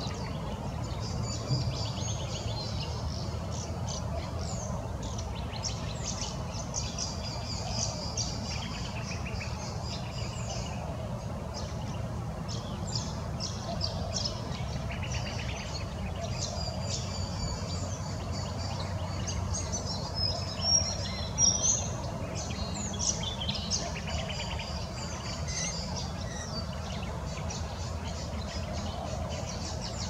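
Small birds chirping and trilling repeatedly over a steady low rumble, with a few louder calls about two-thirds of the way through.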